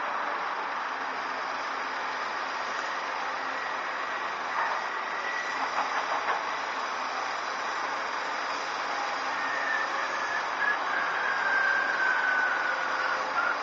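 Heavy earthmoving machinery running steadily: an excavator working and articulated dump trucks being loaded. A few knocks come in the middle, and a whine falls slowly in pitch over the last few seconds.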